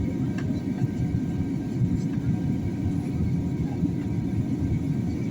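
Airliner cabin noise in flight: a steady low rumble of the engines and the air rushing past the fuselage.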